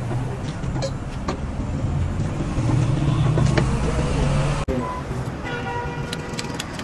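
Roadside traffic noise: a vehicle engine rumbling close by, loudest around the middle, then broken off abruptly about four and a half seconds in. A faint steady tone follows.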